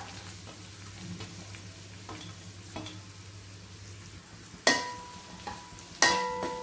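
Chopped vegetables sizzling softly in hot oil in a non-stick pan as chopped onion is tipped in. Near the end a metal slotted spatula strikes the pan twice, about a second apart, each strike leaving a brief ringing tone.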